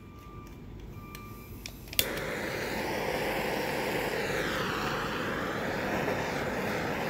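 Handheld propane torch lighting with a sharp click about two seconds in, then the flame burning with a loud, steady hiss. It is being used to melt and seal the cut end of a synthetic rope.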